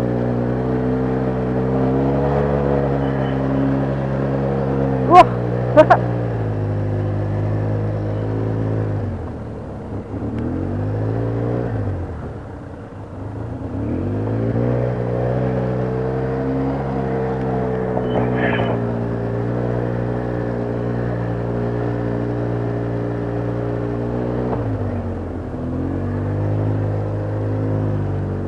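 ATV engine running at a steady speed on a trail ride. It eases off to near idle for a few seconds in the middle, then picks up again, with another brief dip near the end. Two sharp knocks come about five seconds in.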